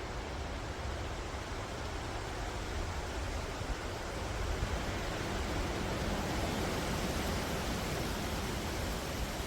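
Wind blowing through forest trees: a steady rushing of leaves and branches with a low rumble underneath, swelling a little about halfway through.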